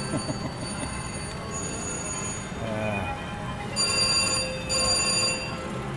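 VGT slot machine's electronic chimes and game sounds over casino floor noise, with two louder bursts of ringing bell tones about four and five seconds in.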